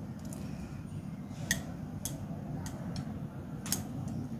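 Plastic chopsticks clicking against a ceramic bowl and platter as cherry tomatoes are picked up and set down: a few sharp, irregular clicks over a low steady hum.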